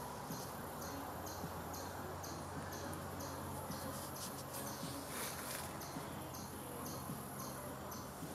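Insects chirping in a steady rhythm, about two pulses a second, over a faint low hum, with a brief rush of noise about five seconds in.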